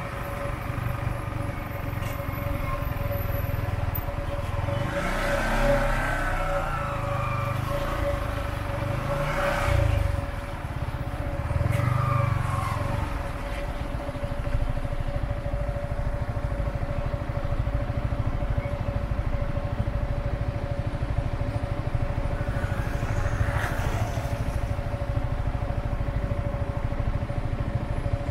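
City road traffic heard from a motorbike moving slowly in a jam: the low engine noise of the cars, pickups and scooters around it, with a steady whine under it all. A few engines rev up and pass, the loudest around six, ten and twelve seconds in.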